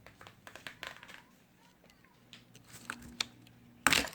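Small plastic clicks and scrapes as a flat screwdriver is worked into the clip of a Mazda key remote's plastic case, then one loud sharp snap near the end as the case pops open.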